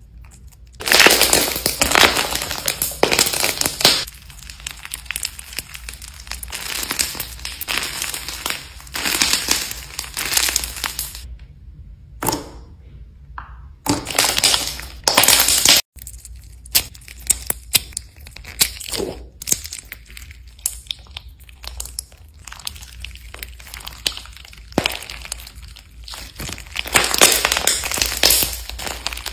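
Hands squeezing, poking and kneading thick slime, some of it mixed with beads, with close-up sticky crackling. The crackling comes in stretches of a few seconds with short pauses between them.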